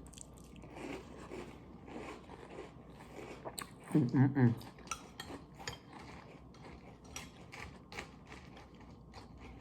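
Crunchy food being chewed close to the microphone: a quick, irregular run of small crunching clicks. A short voiced sound breaks in about four seconds in.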